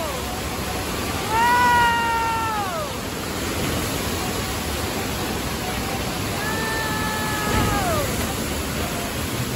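A torrent of water from a staged flash flood surges and crashes across a street set, making a steady rushing noise. High voices cry out twice over it, each cry held and then falling in pitch, about a second and a half in and again near the end.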